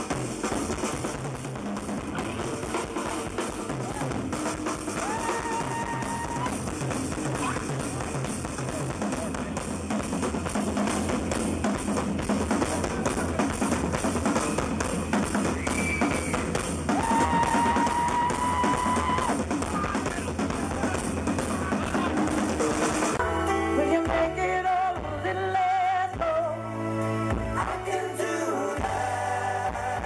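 Pop-rock band music with a full drum kit, bass drum and snare driving a steady beat, with two long held notes over it. About 23 seconds in it changes abruptly to a different passage with singing.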